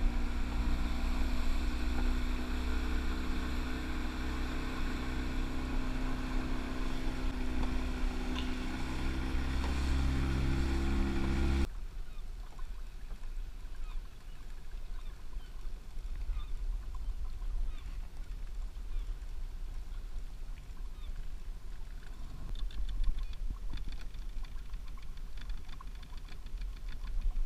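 A small boat's motor running steadily under way, with water rushing past the hull. About twelve seconds in it cuts off abruptly to a much quieter low rumble with faint splashes and lapping of water against the drifting boat.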